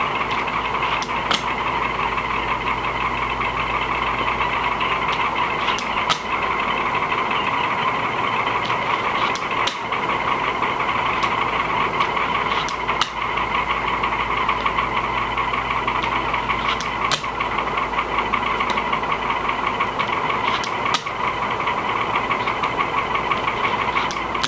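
A fingerboard popping off a hard surface and landing, heard as pairs of sharp clicks about every four seconds, over a loud steady mechanical hum.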